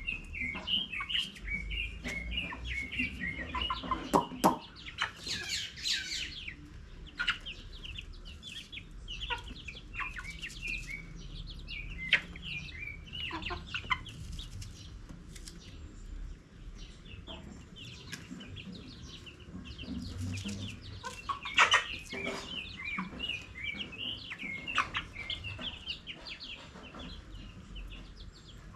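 Chickens clucking, with many short high-pitched chirps throughout and a few louder calls about four seconds in and again past twenty seconds.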